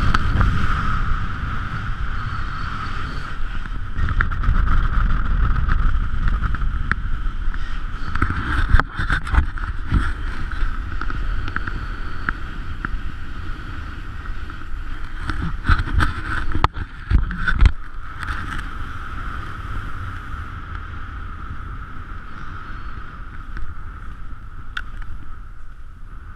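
Wind rushing over an action camera's microphone while skiing across snow, with skis running over the snow and a few knocks and clatters. It grows quieter in the later part.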